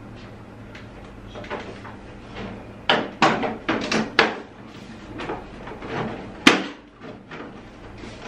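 Plastic front panel of a split air conditioner's indoor unit being lowered and pressed shut by hand: a run of plastic clacks and knocks about three to four seconds in, then one sharp snap a little past six seconds as a clip catches.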